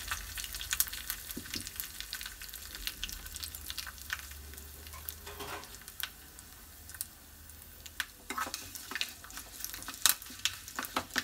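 A tempering of mustard seeds, dried red chilli and curry leaves sizzling and crackling in hot sesame oil in a small pan, with scattered sharp pops throughout. Near the end a spoon stirs and scrapes in the pan, adding clicks.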